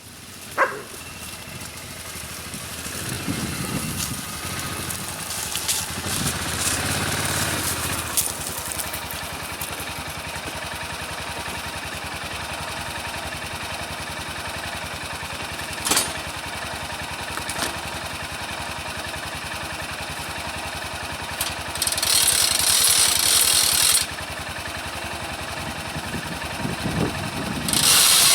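An engine running steadily, building up over the first few seconds. Near the end come two loud bursts of hissing noise, each about two seconds long.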